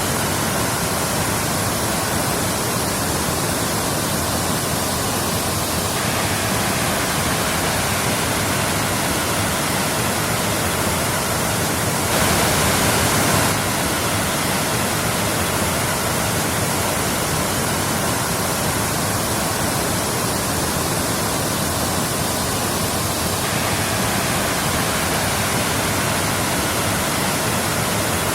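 Waterfall: a steady rush of falling water, a little louder for about a second and a half near the middle.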